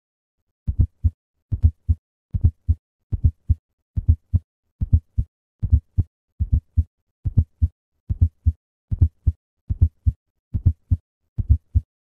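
Heart sounds of an S4 (atrial) gallop, starting about two-thirds of a second in and repeating at roughly seventy beats a minute. Each beat is a quick pair of low thuds, the fourth heart sound just before S1, followed by S2, giving a three-part galloping rhythm. The S4 is the sign of the atrium emptying into a stiff, non-compliant ventricle, usually pathological.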